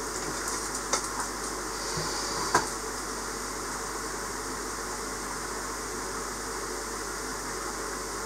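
Steady hiss and hum of aquarium equipment running, with a few small clicks about one and two and a half seconds in.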